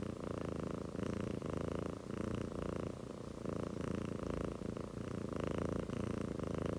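Golden chinchilla Persian cat purring steadily close up, the purr swelling and easing with each breath.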